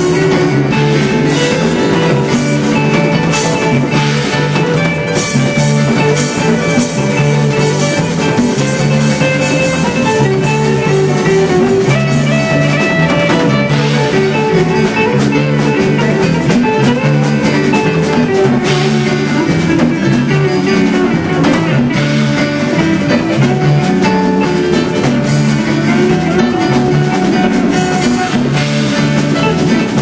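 Live band jamming an instrumental passage: electric guitar, keyboard and drum kit playing together steadily.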